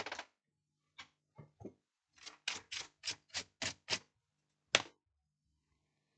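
Faint, light clicks: a few scattered ones, then a quick even run of about seven, then one more, over a faint steady low hum.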